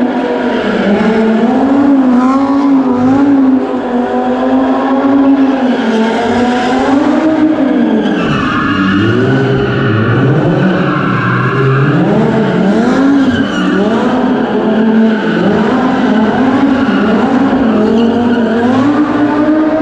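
Audi R8 V10 Plus's 5.2-litre V10 engine held at high revs, the revs swinging up and down over and over, with tyres squealing as the car spins donuts; the squeal is strongest about halfway through.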